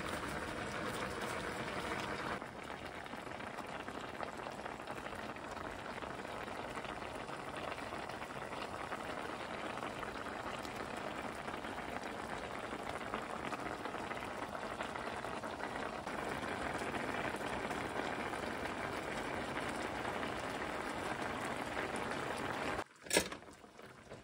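Squid stew bubbling at a steady boil in a frying pan, its sauce of soy sauce and vinegar simmering and hissing. The sound stops abruptly near the end, followed by a single sharp click.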